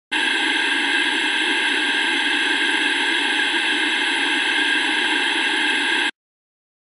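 Television static: a steady hiss of white noise that cuts off suddenly about six seconds in.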